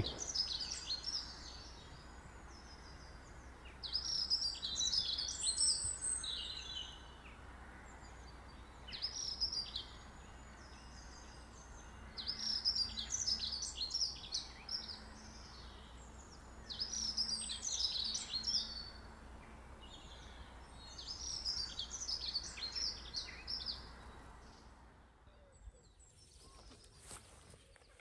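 A songbird singing short, varied phrases about every four seconds, over a faint low rumble; the song fades out near the end.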